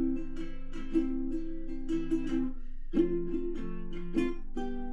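Strummed ukulele playing a short tune of quick chord strokes, with a brief pause about two and a half seconds in. The last chord rings on near the end.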